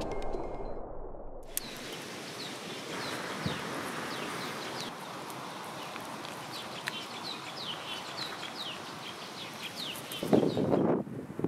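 Small birds chirping over a steady outdoor hiss: many short, quick chirps that sweep downward in pitch, repeating throughout. Near the end a louder burst of rustling takes over.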